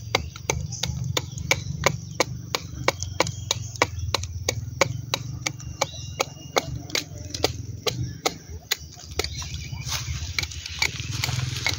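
A steel knife blade chopping and scraping at the bark of a durian trunk, in short sharp strokes about three a second, to cut away the rotten wood of a trunk canker. A scratchy scraping comes in near the end.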